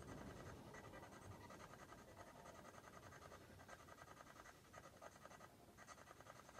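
Near silence: a faint, fast, even crackle of static.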